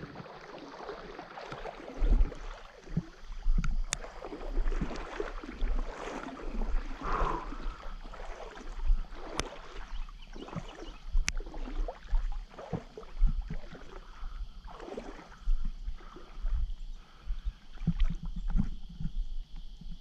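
Water sloshing and splashing in uneven surges as someone wades through shallow water, with a few faint clicks.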